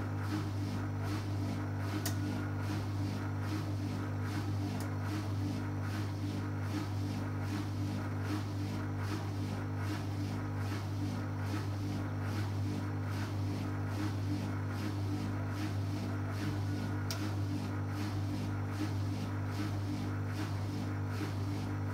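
Beko BKY 2317 B washing machine's drain pump running with a steady low hum while the drum stands still, emptying water between stages of the wash program.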